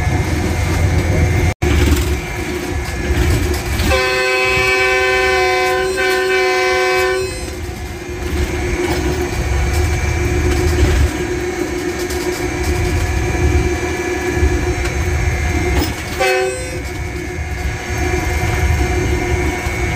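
GE U20C diesel-electric locomotive running, heard from the cab: a steady low engine rumble with the wheels on the rails. About four seconds in, its horn sounds a long chord for about three seconds, and a second short horn blast comes about four seconds before the end.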